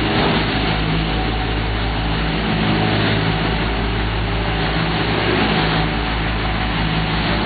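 Heavy diesel engines of asphalt paving equipment running steadily at a work idle, a constant low engine drone with a noisy mechanical rumble on top.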